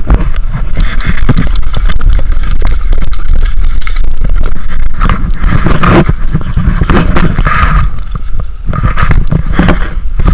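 Heavy wind buffeting and handling rumble on a head-mounted action camera as the wearer moves, with scraping and rustling as branches and brush brush past, and a run of knocks and clatter from movement and gear.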